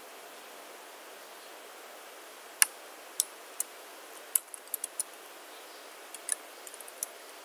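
Computer keyboard keystrokes: scattered single clicks, with a quick run of several about halfway through and another small cluster near the end, over a faint steady hiss.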